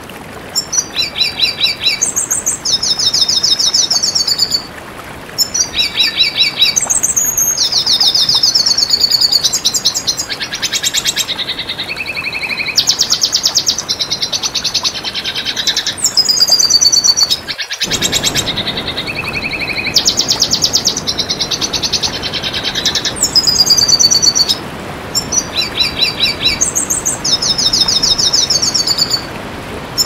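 Red siskin singing: a long run of rapid twittering trills and buzzy phrases broken by short pauses, over a steady background hiss. The hiss drops out for an instant just past halfway.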